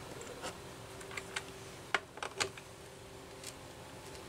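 Scattered light clicks and taps as a stuck Homelite 330 chainsaw carburetor is wiggled and worked by hand to free it from its rubber boot, over a faint steady hum.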